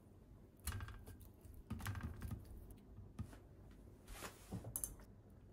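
Slices of raw chicken breast being laid into a stainless steel tray: a handful of soft slaps and light taps at irregular intervals.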